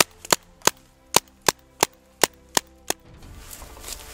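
A BT-4 Combat paintball marker firing a rapid string of about nine sharp shots, roughly three a second, stopping about three seconds in.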